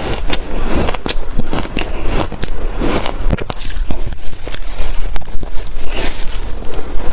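Shaved ice being bitten and crunched close to the microphone: a steady run of irregular, crisp crunches.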